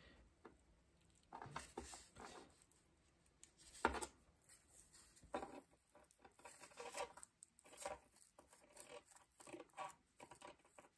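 Faint scraping and clicking of an antique brass light socket being twisted apart by hand, its crusty brass parts starting to move, with a sharper click about four seconds in.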